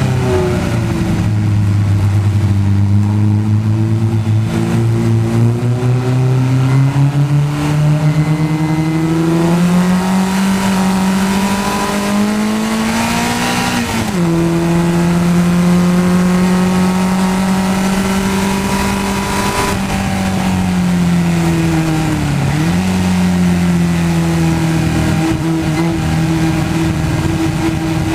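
Race car's Mazda four-cylinder engine heard from the open cockpit, pulling hard with its pitch rising steadily for about fourteen seconds, then stepping down and holding. It falls away again about two-thirds through with a brief dip and recovery, a downshift for a corner, and settles into a steady pull near the end, with wind and spray noise underneath.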